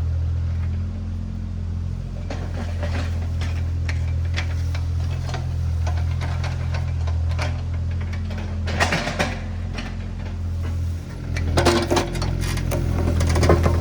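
Diesel engine of compact earthmoving equipment running steadily under work, with clanks and knocks of the machine and material, heaviest about nine seconds in and again near the end.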